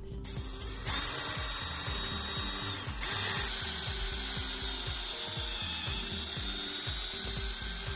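Handheld power drill running a twist bit through a wooden handle, a steady whir from just after the start. The sound changes about a second in and again at about three seconds.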